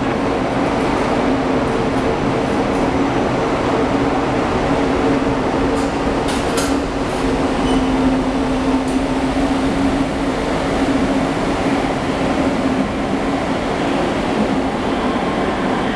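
Deutsche Bahn ICE high-speed train pulling out of the station: a steady electric hum with two held pitches over the rumble of wheels on rails, and a few sharp clicks about six to seven seconds in.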